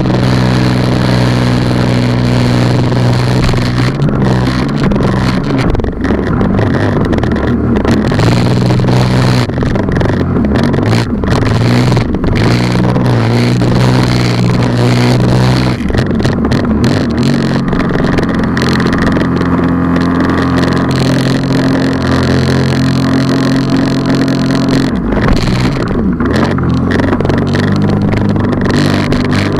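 Sea-Doo Spark personal watercraft's three-cylinder four-stroke engine running under way, its pitch stepping up and down several times as the throttle is worked, over a steady rush of water spray and wind.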